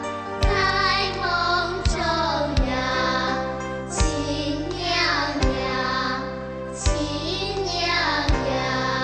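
A child singing a Chinese song over a backing track with a steady beat, a strong low drum hit about every one and a half seconds.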